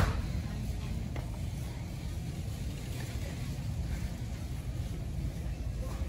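A steady low rumble, with one sharp knock at the very start.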